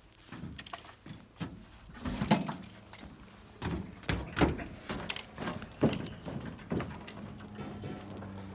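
Irregular metal clanks and rattles as a pair of caster-wheeled vehicle dollies are lifted out of a pickup bed and carried, about a dozen knocks, the loudest about two seconds in. A low steady hum comes in near the end.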